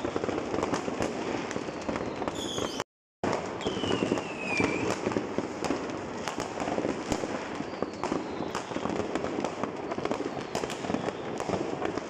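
Many New Year fireworks and firecrackers going off at once across a city: a continuous stream of bangs, cracks and pops, with a few whistles that fall in pitch. The sound drops out for a moment about three seconds in.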